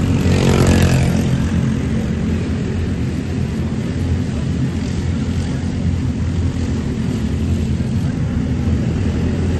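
A steady, loud low engine drone, with a brief louder sound in the first second.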